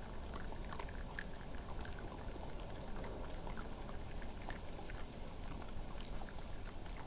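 Badgers and red foxes eating peanuts off the ground: many irregular little crunches and clicks of munching over a steady low background hiss.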